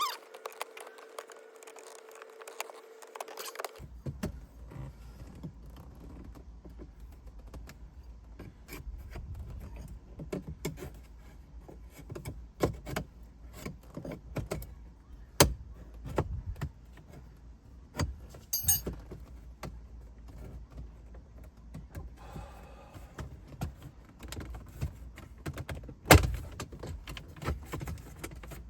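Scattered plastic clicks, taps and scrapes of metal prying tools working a Subaru Outback dashboard air vent loose from its body clips, with a sharp snap near the end. A faint steady hum runs over the first few seconds.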